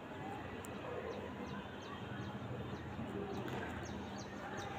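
A small bird chirping repeatedly outdoors, short high chirps about two a second, starting about a second in, over a faint steady low hum.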